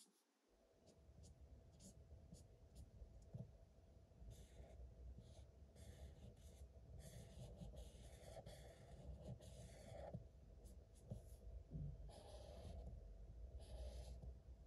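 Orange felt-tip marker scratching on paper in quick back-and-forth colouring strokes, faint, coming in runs with short pauses between them.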